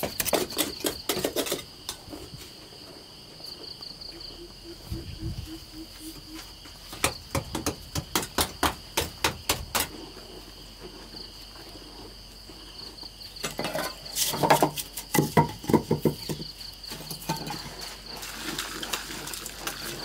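Hand digging blade striking into packed earth in quick runs of knocks: a burst at the start, another about 7 to 10 seconds in, and the loudest about 13 to 17 seconds in. Crickets chirp steadily in the background.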